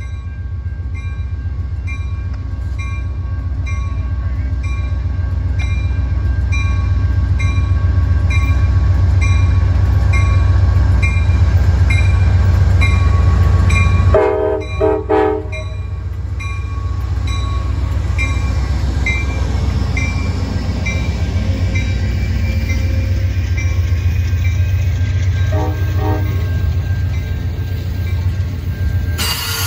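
GE P42DC diesel locomotive approaching and passing, its rumble building to a peak about halfway through, with a short horn blast as it goes by and another brief toot later; Amfleet passenger cars then roll past with wheel-on-rail noise. A grade-crossing bell rings steadily through the first two-thirds, and a wheel squeal rises right at the end.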